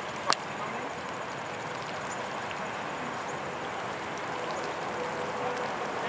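Steady outdoor background noise, with faint, brief chirps from small birds scattered through it and one sharp click about a third of a second in.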